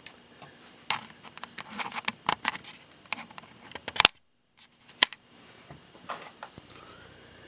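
Handling noise: scattered light clicks and rustles, with one sharp click about four seconds in followed by a brief dead-silent dropout of about half a second.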